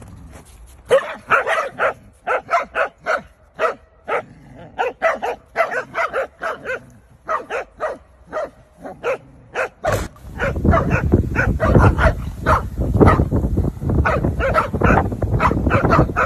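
Corgis barking and growling in quick short bursts, several a second, as they play tug-of-war. About two-thirds of the way in, a heavy low rumble joins underneath.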